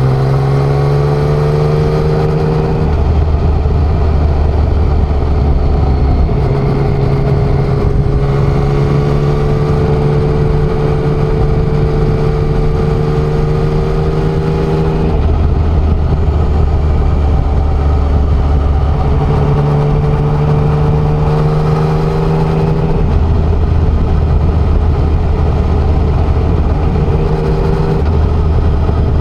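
Yamaha XSR900's inline three-cylinder engine running on the move, its note rising gently and stepping down and back up several times, over steady road and wind noise.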